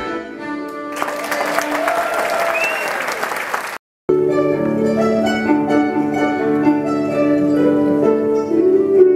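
A traditional Irish tune ends and the audience applauds. After a cut, about four seconds in, two harps play a tune in long, ringing notes.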